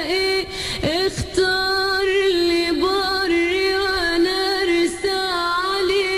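A woman singing live in Arabic, drawing out long ornamented notes with a wavering vibrato.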